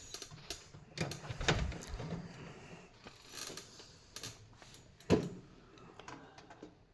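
Items being handled in a tool chest drawer: scattered clicks, knocks and rattles, with a louder knock about five seconds in.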